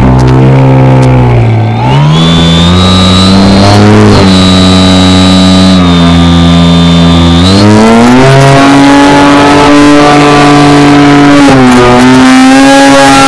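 Motor and propeller of a Future Model Edge 540T RC aerobatic plane, heard very loud from a camera mounted inside the plane, its pitch shifting with the throttle. It rises about two seconds in, climbs again near eight seconds, and dips briefly near twelve seconds.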